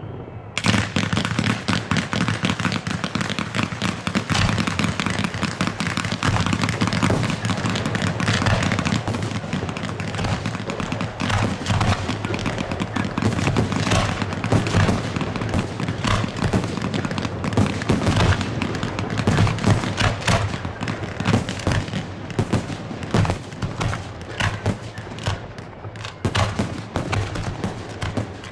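Fireworks grand-finale barrage: a dense, unbroken run of rapid, overlapping aerial shell bursts and crackling that starts abruptly about half a second in.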